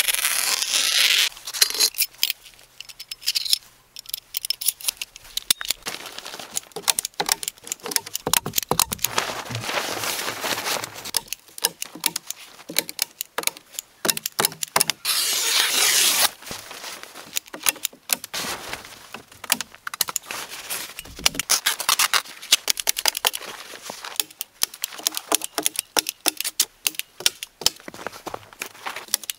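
Sheet of breathable building membrane rustling and crinkling as it is sliced with a knife and unrolled, with a loud swish near the start and another about halfway through. Footsteps in snow and scattered sharp clicks and knocks.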